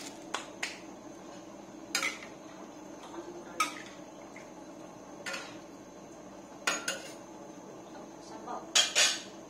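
Metal ladle and cookware clinking and knocking against a pan of fish soup on the stove: a scatter of separate clinks, the loudest two close together near the end.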